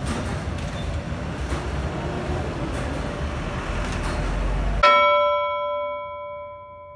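Busy eatery background noise with kitchen clatter, cut off abruptly about five seconds in by a single struck bell chime that rings out and slowly fades.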